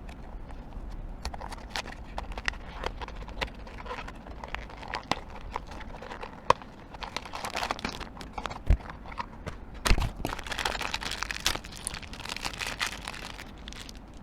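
Hands opening a small cardboard blind box and its plastic wrapping: a run of light taps and clicks, stretches of crinkling, and two louder knocks near the middle.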